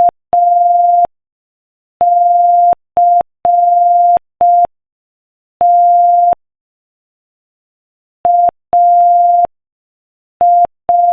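Morse code sent at 5 words per minute: a single steady beep keyed on and off in short dots and long dashes, with silent gaps between letters and a longer gap between words.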